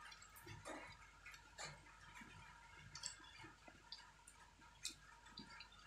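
Near silence with faint, scattered small clicks and ticks from eating and drinking at the table.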